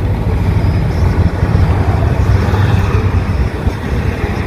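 Road traffic: cars and a pickup truck driving past on the road ahead, over a steady low rumble.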